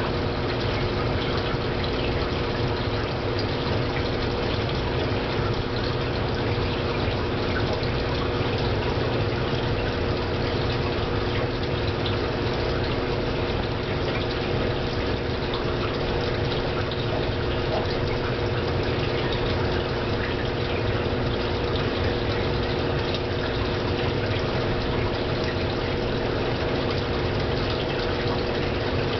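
Aquarium pump and water circulation running steadily: a constant hum with several steady tones under an even rush of moving water.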